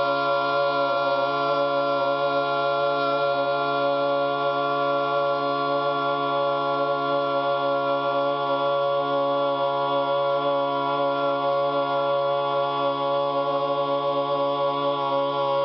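One long, loud, low-pitched vocal tone held on a single steady note without a break, like a droned chant.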